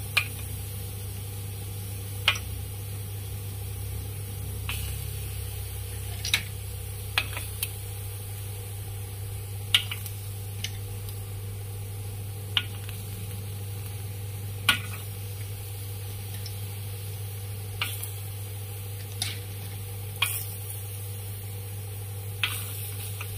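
Boiled white clams in their half-shells set down one at a time on a hot nonstick grill pan: sharp shell clicks every second or two over a faint steady sizzle and a low hum.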